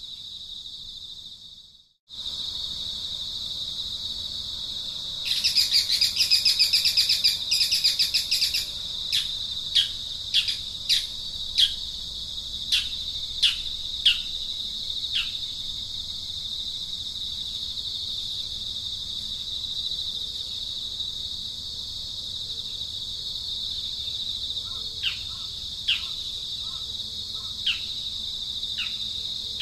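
Nature ambience of insects trilling steadily at a high pitch, with a bird giving a burst of rapid chirps and then a string of short, downward-sweeping calls. The ambience drops out for a moment about two seconds in.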